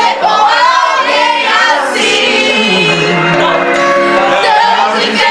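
A group of people singing a song together, women's voices to the fore.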